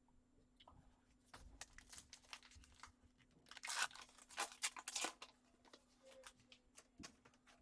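A trading-card pack wrapper being torn open and crinkled, a run of crackly tearing and rustling that is loudest about halfway through.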